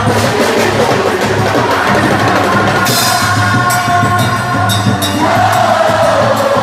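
Loud São João (festa junina) music with a steady drum beat and singing.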